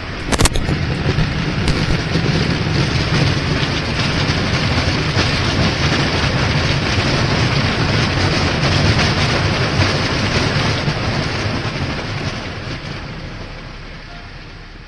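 Airbus A319 touching down with a sharp thump about half a second in, followed by a loud rushing roar with a deep rumble as the airliner rolls out and slows; the roar dies away over the last few seconds.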